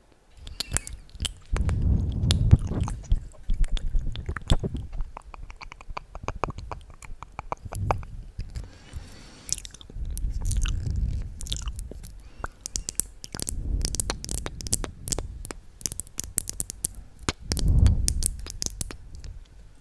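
Close-up wet mouth sounds: irregular clicks and smacks, with a fast, even run of clicks about six seconds in and several low, muffled swells.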